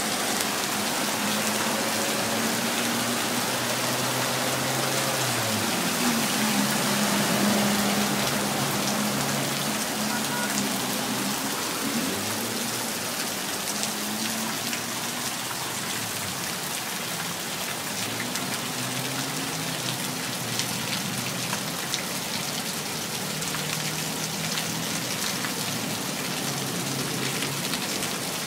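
Heavy rain pouring down and splashing on hard surfaces, a steady loud hiss, with a low hum that comes and goes underneath.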